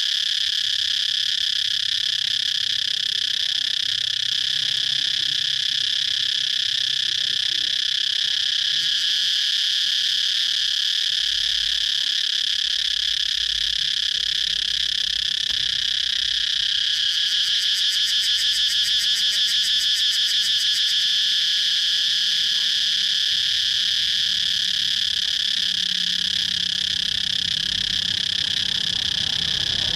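Cicadas singing in a continuous, loud, steady drone, with a few seconds of rapid pulsing a little past the middle.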